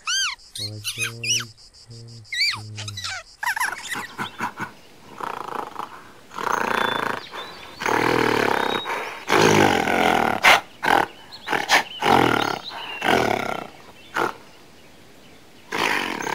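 A slow loris squeaking in high chirps that rise and fall, then, about four seconds in, a gorilla growling and grunting in rough bursts of about a second each.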